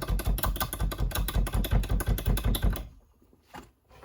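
Rapid, even mechanical clicking with low knocks, about six or seven a second, stopping about three seconds in.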